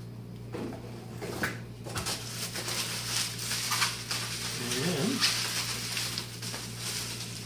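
Plastic bubble wrap and a clear packing bag rustling and crinkling as they are handled and pulled apart, with a short wavering whine about five seconds in.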